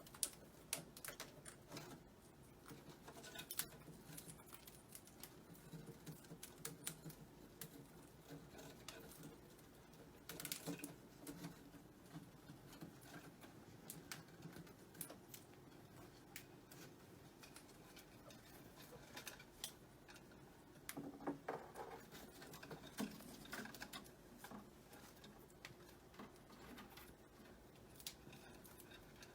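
Faint, irregular clicking and tapping: a parrot's beak and feet working at a toy.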